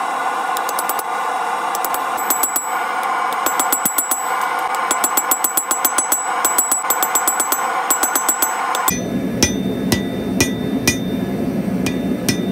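Hand hammer striking hot steel on an anvil in quick runs of blows, each with a high ringing ting, over a steady background rush. About nine seconds in the background drops to a lower rumble, and the strikes go on more sparsely as a hand-held chisel is hammered into the hot steel.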